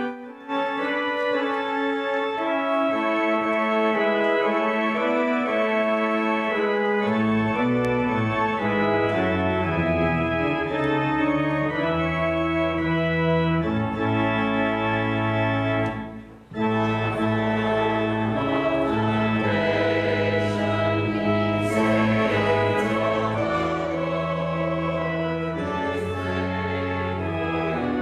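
Church organ playing slow, sustained chords. Deep bass pedal notes come in about seven seconds in, and the music breaks off briefly about halfway through, as at the end of a phrase, before carrying on.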